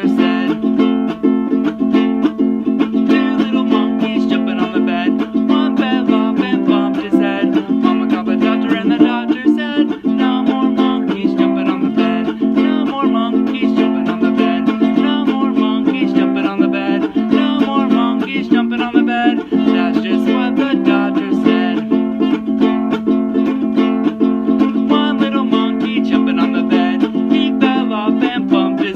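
Instrumental music: a strummed string instrument playing a steady, even rhythm, with no singing.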